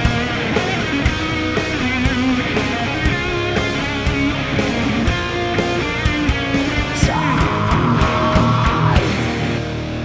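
Instrumental rock music with distorted electric guitar and a steady drum beat. A long high note is held from about seven to nine seconds in.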